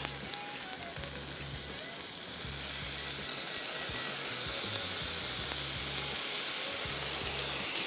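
Pepper sauce hitting a hot cast-iron sizzler plate and sizzling. The hiss swells about two and a half seconds in and then holds steady.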